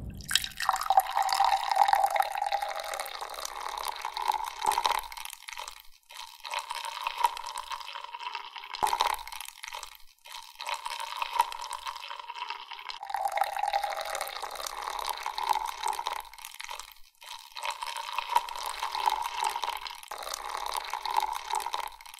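Milk pouring in a thin stream from a metal pitcher into a glass of iced coffee over ice, a steady trickling splash with a few brief breaks.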